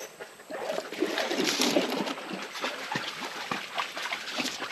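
Creek water trickling and splashing, with scattered small clicks and rustles from a mesh crawfish trap being handled.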